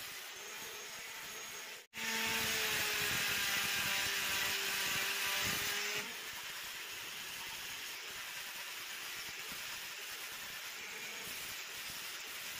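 Electric angle grinder fitted with a sanding disc, sanding the wooden body of a hand plane: a steady whirring hiss, louder from about two to six seconds in, with a motor tone that sags slightly in pitch under load. The level changes abruptly at both ends of that louder stretch.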